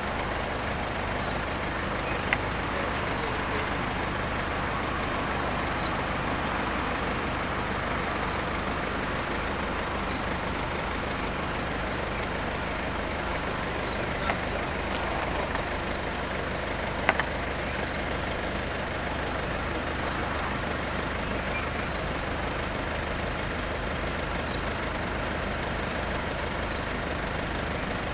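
Steady hum of road vehicles idling while they wait at the closed crossing, with three brief sharp clicks, the loudest about two-thirds of the way through.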